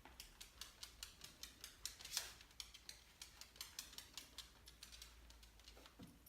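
Faint, quick irregular clicking, several a second, with one louder scuffle about two seconds in: a dog's nails ticking on a hard floor as it moves about searching.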